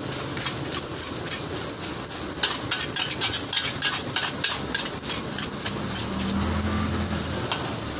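Fried rice sizzling in a hot wok while a metal spatula stirs and scrapes it, with a run of quick clanks of the spatula against the wok for about two seconds in the middle.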